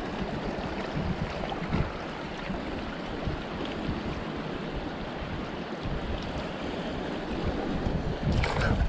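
Small waves washing against rocks at the shoreline, with wind buffeting the microphone as a steady rumble.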